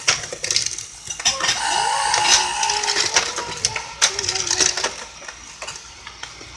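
Tomica Auto Fumikiri Station toy level crossing clicking and rattling as its plastic mechanism works, with a short steady electronic tone about a second and a half in.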